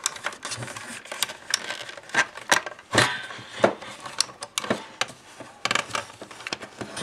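Hard plastic clicking, knocking and scraping as the front control panel of a Breville BJE510XL juicer is worked loose by hand and pulled out of the housing. The clicks and knocks come irregularly, with a few louder ones around the middle.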